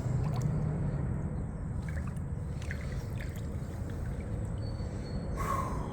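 River water trickling and gurgling around a kayak, with a steady low rumble and a few faint light knocks. A short, sharper sound comes near the end.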